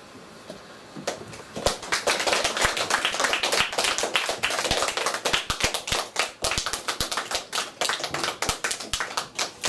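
A group of people clapping, many hands at once in quick, irregular claps, starting about a second in: applause at the end of a story.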